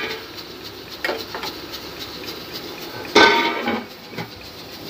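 Steel cooking pot and lid being handled. A light clink comes at the start and a knock about a second in, then a louder metallic clang that rings briefly about three seconds in.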